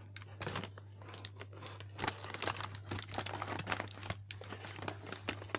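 Food packaging crinkling and rustling as it is handled, a few crackles at first and then a dense run of them from about two seconds in, over a low steady hum.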